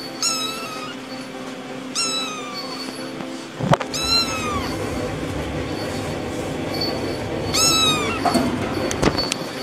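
A young kitten meowing: four high-pitched mews a couple of seconds apart, each falling in pitch at the end, with a short knock just before the third.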